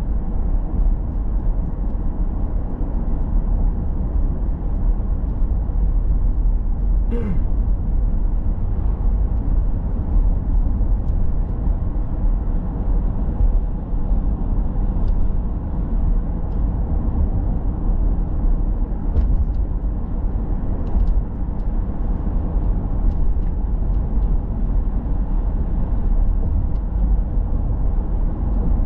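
A car driving along town streets: steady, deep road and engine noise, heard from inside the car. There is one brief sharp click about seven seconds in.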